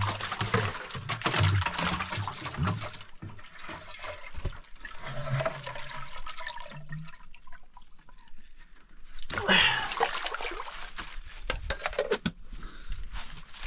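Water gurgling and splashing as a plastic jerry can is held under the surface of a shallow muddy pool and fills, air glugging out of its neck. A louder burst of splashing comes about nine and a half seconds in.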